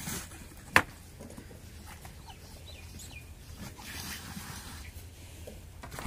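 Faint farmyard background with a few birds chirping, and one sharp click a little under a second in.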